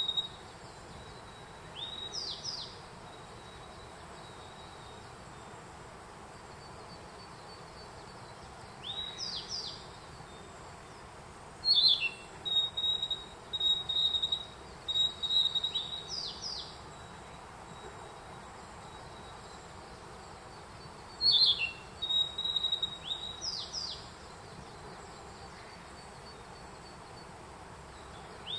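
A narcissus flycatcher sings two longer phrases, each opening with a sharp falling note and running on into a string of quick notes. Between them a Japanese grey bunting repeats its short 'fee, chii chii' song, a level whistle and two falling notes, about every seven seconds, so the two birds seem to answer each other.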